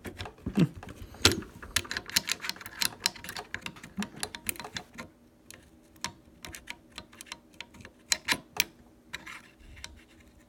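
Irregular sharp metallic clicks and taps of a Marlin 336 lever-action rifle's hammer and trigger parts being fitted into the receiver and worked against each other to seat the hammer in the trigger notch. The clicks come close together in the first half and more sparsely later, with a few louder ones near the end.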